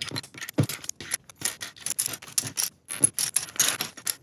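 Small plastic building blocks clattering and clicking against each other and the table as they are handled, in quick irregular clicks.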